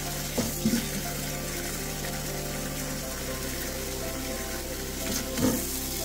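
Kitchen tap running steadily into a stainless steel bowl of water, with strawberries splashing in about half a second in and again near the end. Soft background music with held notes plays underneath.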